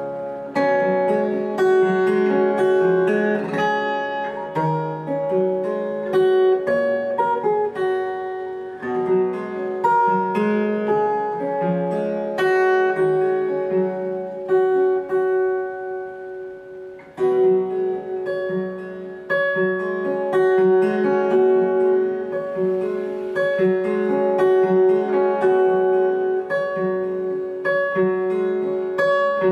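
Solo acoustic guitar played fingerstyle: a plucked melody and chords over a repeated ringing note. About halfway through it thins to a few notes that ring and die away, then comes back in strongly.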